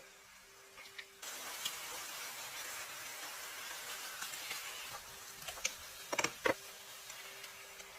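A steady cooking hiss that starts abruptly about a second in, with a few small clicks and two sharp knocks in quick succession around six seconds in.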